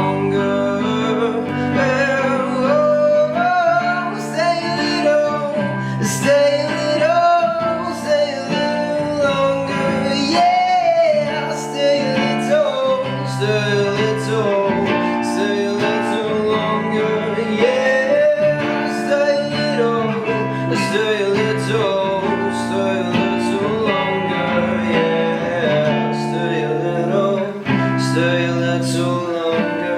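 Instrumental passage of a live acoustic song: acoustic guitar strummed in a steady rhythm, with a gliding melody line over it.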